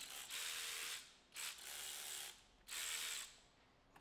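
18V brushless cordless ratchets, a RIDGID R866011 and a Ryobi PBLRC25, running nuts off small bolts in three trigger bursts of about a second each: a motor-and-gear whir with a high steady whine.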